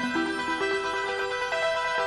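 Background music: a melody of short stepped notes over sustained tones.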